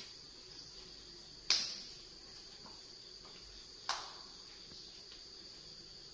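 Insects chirring steadily at a high pitch, with two sharp knocks, about a second and a half in and again about four seconds in.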